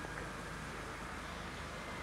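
Steady outdoor background noise with no distinct event, only a faint tick shortly after the start.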